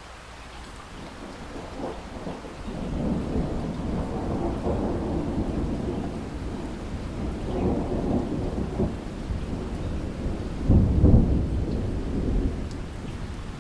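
A long roll of thunder over steady rain: the rumble builds from about two seconds in, surges several times, and is loudest late on before easing off.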